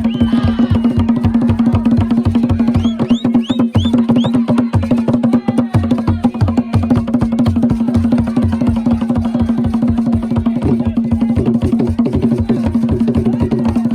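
Fast, dense drumming for Gule Wamkulu (Nyau) dancing, with a steady low drone underneath and a few short rising shrill calls about three seconds in.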